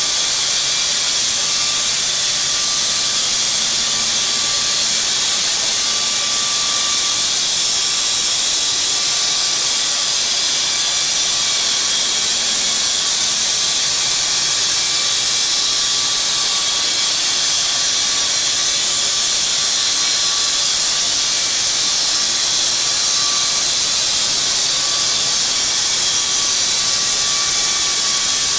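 Lynx EA bandsaw mill running along a log: a loud, steady hiss with a faint high whine underneath.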